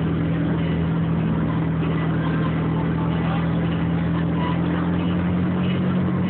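Steady low engine hum of a miniature amusement-park train, heard from aboard while it runs.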